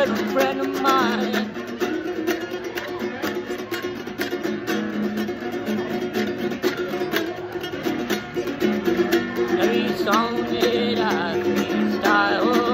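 Small nylon-string guitar strummed rapidly in a steady rhythm, with a man singing over it at the start and again near the end.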